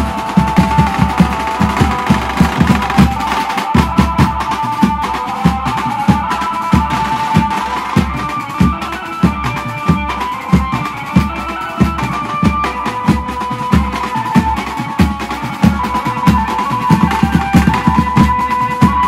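Indian banjo party band playing: an amplified Indian banjo (bulbul tarang) carries a melody over fast, dense drumming.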